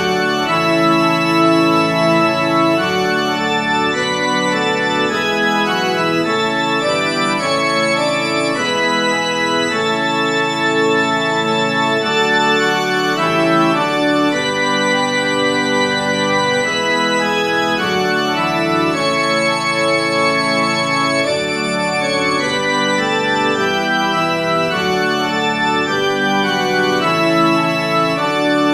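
Organ music: sustained chords held and changing every second or so, at a steady level.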